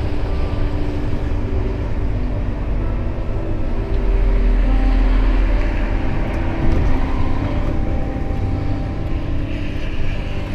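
Diesel truck engine heard from inside the cab while driving in slow traffic, running steadily, with a heavier low rumble for a couple of seconds from about four seconds in as it pulls harder.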